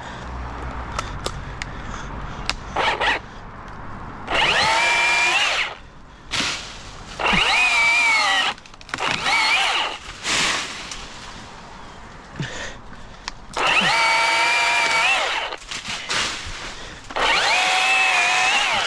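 Battery chainsaw cutting into a mango tree limb in repeated bursts of a second or so. Its motor whine dips in pitch as the chain bites into the wood, recovers, and stops between cuts.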